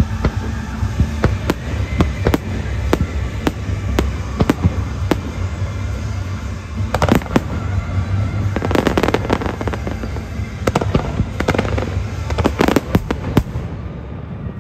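Fireworks shells bursting one after another over show music, the bangs crowding into dense volleys in the second half and stopping shortly before the end.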